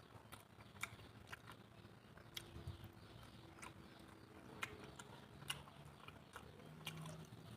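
A person chewing a mouthful of food close to the microphone, with many small sharp mouth clicks.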